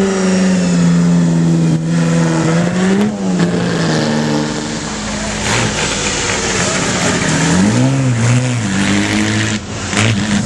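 Vintage pre-war Grand Prix racing car's engine running at low revs as the car pulls away, with a rise in revs about three seconds in and another near eight seconds.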